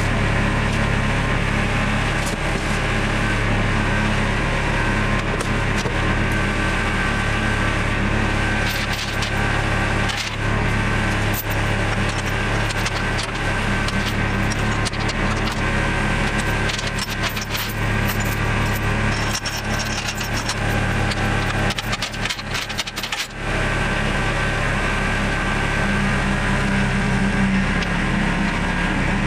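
A compact tractor engine running steadily, with chains clinking and rattling and metal knocks as a portable generator is chained into the front-loader bucket and lifted.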